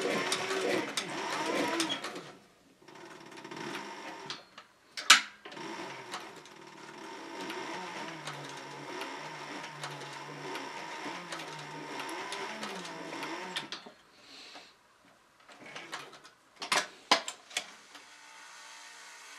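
Heavy-duty leather sewing machine stitching through a thick leather knife sheath: a fast run of needle strokes at first, then slower stitching with a steady motor hum that stops about fourteen seconds in. A loud sharp clack about five seconds in, and a few more clacks near the end.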